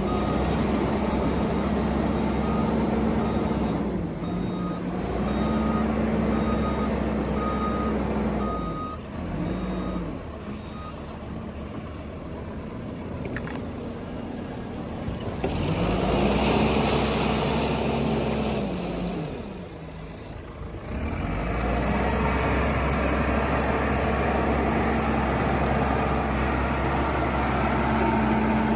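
Diesel engine of a heavy construction machine working, its revs repeatedly rising and falling. A reversing alarm beeps about twice a second and stops about eleven seconds in.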